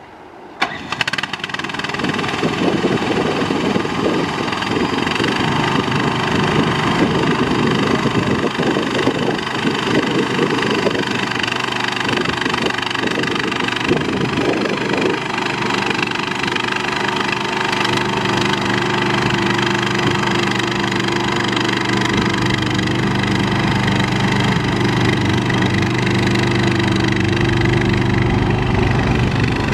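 Compact skid steer loader's engine catching about a second in and running, its sound uneven for roughly the first half, then running steadily with an even hum.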